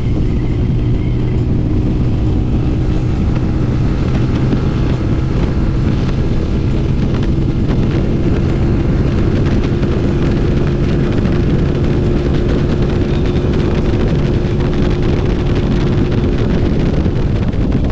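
TVS Apache RTR 200 4V's single-cylinder engine running steadily at a highway cruise of about 120 km/h, with wind noise on the microphone.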